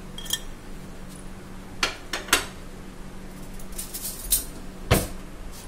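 Glass kitchenware and a metal spoon clinking and knocking. There are a handful of separate sharp clinks, with the loudest knock about five seconds in.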